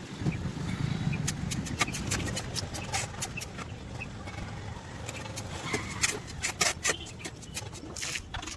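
Construction work: many irregular sharp taps and knocks, clustered close together, over a low rumble that is strongest in the first couple of seconds.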